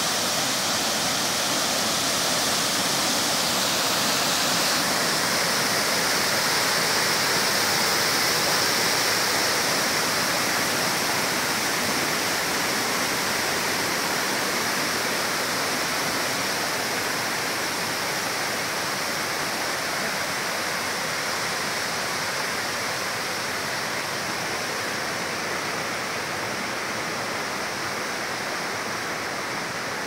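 Waterfall and rocky mountain creek rushing with a steady roar of falling water, growing slowly fainter over the second half.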